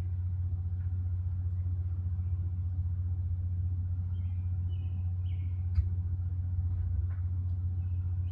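A steady low rumble, with a few short high-pitched calls about four to five seconds in and a sharp click near six seconds.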